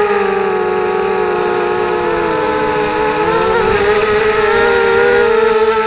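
Brushless motors and propellers of a ZMR-250 FPV quadcopter whining in flight, heard from the onboard camera. Several close pitches run together, dipping a little about two seconds in and climbing again a second later, over a hiss of prop wash and wind.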